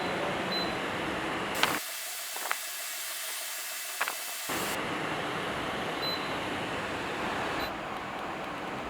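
Evaporative air cooler fan running, giving a steady rush of airflow. A few sharp clicks fall in the first half, and for a couple of seconds the sound thins to a high hiss.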